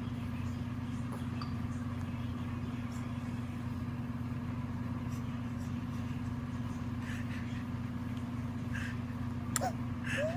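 A steady low hum throughout, with a sharp click and a short rising squeak near the end.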